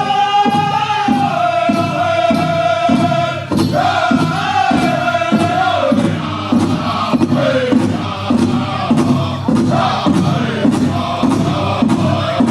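Southern-style powwow drum group singing a crow hop song: men's voices in high, held, wavering notes over a steady unison beat on a big powwow drum, a little over two beats a second.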